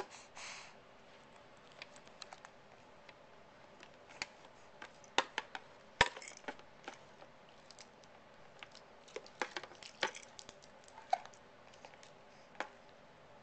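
Irregular light clicks and taps of small hard objects being handled, with the loudest knocks about five and six seconds in.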